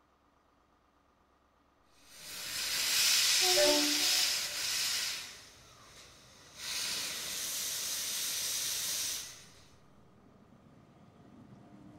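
Steam locomotive letting off steam in two long hisses, each about three seconds long, the first starting about two seconds in.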